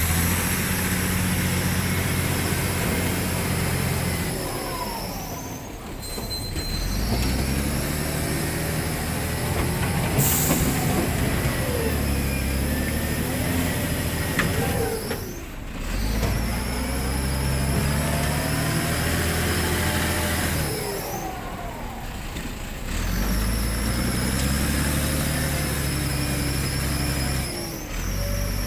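SEM wheel loader's diesel engine revving hard and easing off in repeated cycles as it works the bucket between the gravel pile and the dump truck. It drops away briefly four times, and there is a short hiss about ten seconds in.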